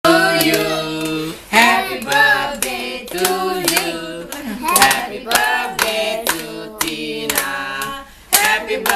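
A group of voices singing a birthday song together while clapping along in time, about two claps a second.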